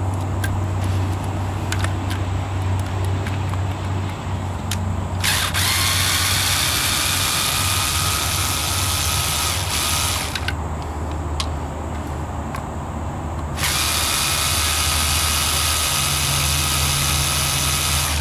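SKIL cordless electric screwdriver running twice, for about five seconds and then about four and a half, backing out the screws of the air pump's housing, after a few light clicks of tools being handled. A steady low hum runs underneath.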